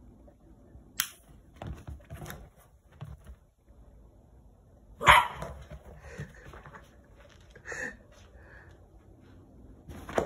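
Yorkshire terrier barking and yelping, startled by a lighter flame, with the loudest bark about halfway through. A sharp click about a second in, from a utility lighter being sparked.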